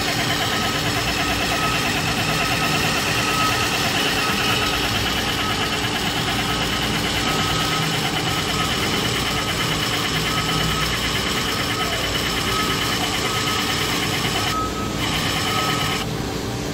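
Electric valve actuator's motor and gear train running steadily as it drives the shaft round toward its full counterclockwise (open) position. It cuts back shortly before the end as it nears the stop.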